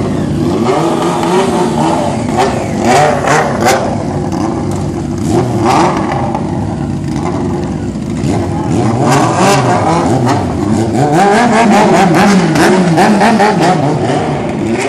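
Honda CBX 750's inline-four engine running loud, revved up and down over and over, with the pitch swinging the most in the second half.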